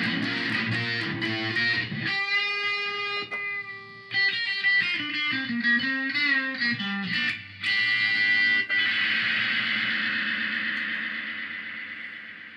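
Electric guitar played through a Korg A5 multi-effects processor, on a patch set with a lot of delay. Strummed chords for about two seconds give way to held single notes with bends, and a final long note fades slowly away.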